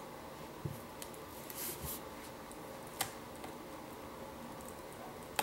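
Faint handling sounds of fingers working a laptop's display ribbon-cable connector into the screen's socket: light rubbing and rustling, with one short sharp click about three seconds in.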